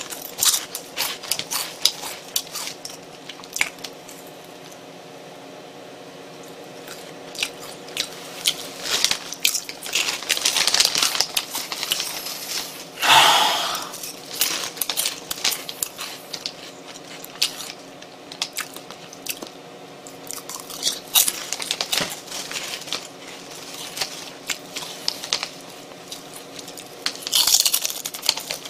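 Crunchy potato snack pieces (Ogamja Honey Milk) bitten and chewed close to the microphone. The crisp crunching comes in bursts, with quieter pauses between mouthfuls.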